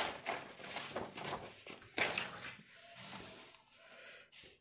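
Paper rustling and crinkling as a spiral-bound notebook page is turned over, with louder crackles at the start and about two seconds in.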